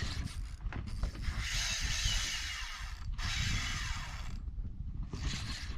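Fishing reel being cranked in after a cast, a whirring mechanical sound in two long stretches with a brief pause between, and a short burst near the end, over a steady low rumble.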